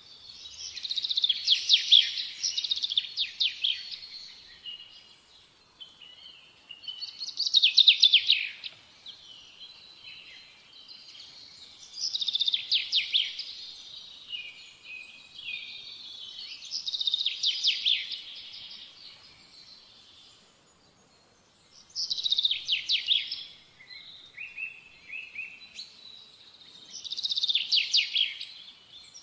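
Birdsong: a bird singing six short, rapidly trilled high phrases, one about every five seconds, with softer chirps between them.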